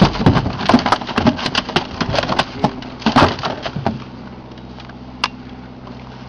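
A freshly landed dolphinfish (mahi-mahi) thrashing in the bottom of a small boat, a quick run of irregular knocks and slaps that stops about four seconds in. Under it, the steady hum of an idling outboard motor.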